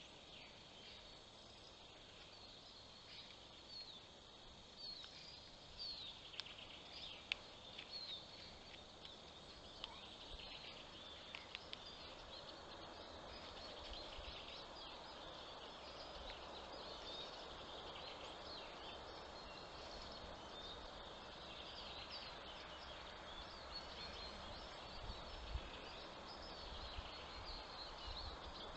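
Faint chorus of small forest songbirds: many short chirps and trills overlapping throughout, over a steady low rumble.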